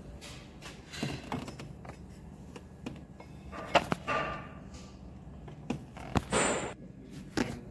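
Scattered clicks and knocks of tools and engine parts being handled, with two brief rasping sounds about four and six seconds in.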